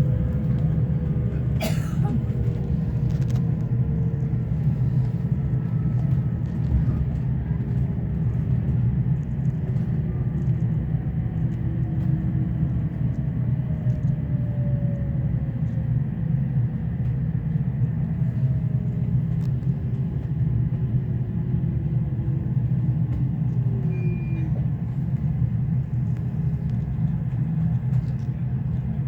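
Train running as it slows into a station: a steady low rumble, with faint whines gliding down in pitch as it loses speed and a single click about two seconds in.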